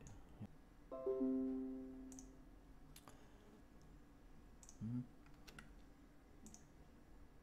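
Windows desktop notification chime: a short ding that starts suddenly about a second in and rings away over about a second and a half. It marks the OBS Studio 'Reconnection successful' pop-up. A few faint mouse clicks follow.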